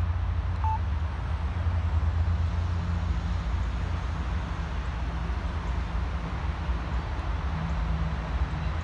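Low, steady rumble of an approaching diesel locomotive, with a faint hiss over it.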